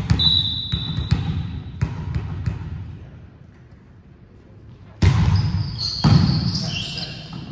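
A volleyball bounced several times on a hardwood gym floor, then a pause, then two sharp hits of the ball about a second apart as a rally starts, with sneakers squeaking on the floor. Everything echoes in the large gym.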